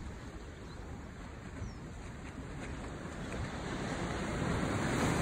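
Ocean surf washing onto a sandy beach, with a wave building and breaking so that the sound grows louder toward the end.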